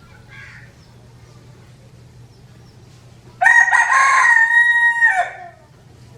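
A rooster crowing once: a single cock-a-doodle-doo about two seconds long, starting a little past halfway, held on a steady pitch and dropping off at the end.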